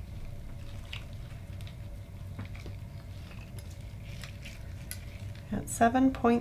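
Faint light clicks and taps of metal tweezers and a digital caliper handling a small pearl, over a steady low hum. A voice starts near the end.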